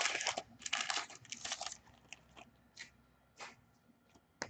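Foil hockey card pack wrapper being torn open and crinkled, in two dense rustling bursts over the first two seconds, followed by a few separate light clicks.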